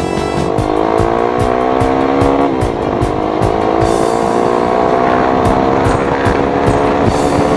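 Motorcycle engine with an Akrapovic aftermarket exhaust accelerating: the revs climb steadily, drop at a gear change about two and a half seconds in, then climb again to another shift near the end.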